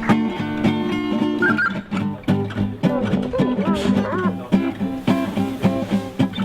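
Background music led by plucked guitar, with a steady, evenly picked rhythm.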